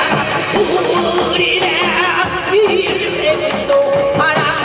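A pumba (Korean itinerant-entertainer folk) singer's amplified voice through a PA, holding long notes with a strong vibrato over a band accompaniment with a regular drum beat.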